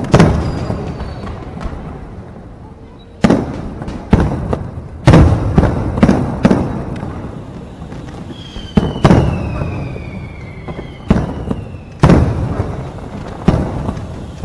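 Aerial fireworks shells bursting in a public display: about a dozen sharp booms at uneven intervals, each dying away in a long rumble. A few thin whistles fall in pitch midway through.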